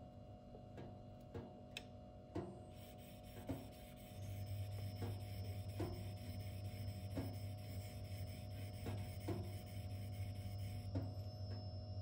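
M390 knife blade being stroked across a Shapton 2000-grit whetstone, a short rasping stroke about once a second, reworking an uneven bevel at the tip. A steady low hum comes in about four seconds in.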